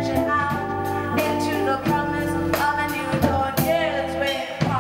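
A live band playing: a woman's voice singing over an archtop electric guitar, bass guitar and drums, with a wavering, held vocal note near the end.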